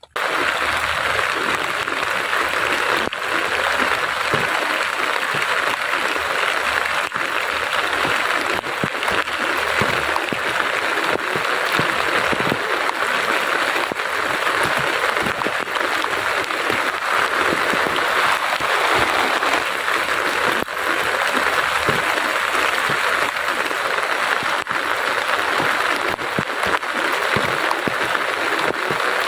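Heavy rain falling, a steady dense patter that cuts in suddenly and keeps an even level throughout.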